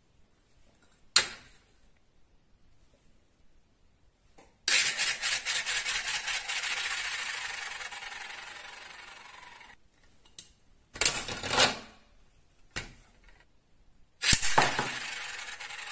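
Neodymium block magnets and a ball on a steel plate making sharp clicks as they snap together. About five seconds in there is a loud rattling run that dies away over about five seconds, and further clicks and rattling come near the end.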